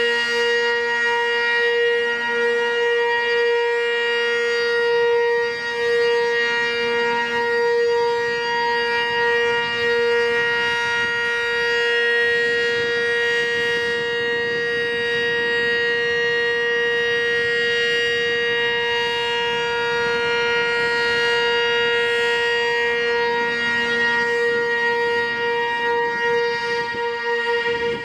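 Sentry 15V2T two-tone outdoor warning siren sounding a steady, loud chord at full speed, its level wavering slightly as the rotating horns sweep around.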